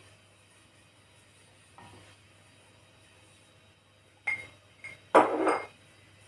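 A drinking glass clinking as a silicone pastry brush is knocked about in it and the glass is handled. There are two sharp clinks about four seconds in, then a louder one that rings briefly.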